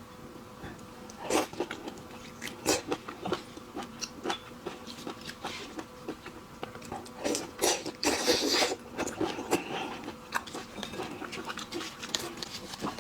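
Irregular clicks, cracks and crackling of shellfish shells being handled and broken apart by hand, denser about eight seconds in.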